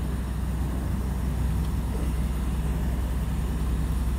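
Diesel engine of a heavy truck idling, a steady low hum with no change in pitch.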